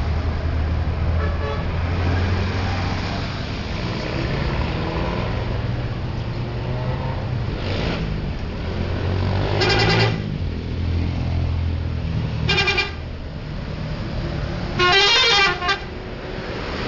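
Bus engine running with blasts of a multi-tone 'telolet' musical horn: a short blast about ten seconds in, a shorter one a couple of seconds later, and a longer one near the end whose notes shift.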